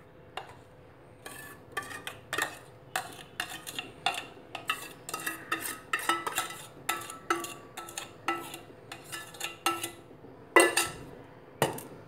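Utensil scraping and tapping against a stainless-steel bowl as sugared pineapple is scraped out of it into a glass dish, a run of short ringing strokes about two a second, with a louder knock near the end.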